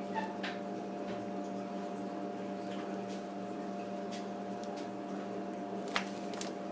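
Steady machine hum, like a small motor running, with a few faint ticks and one sharper click about six seconds in.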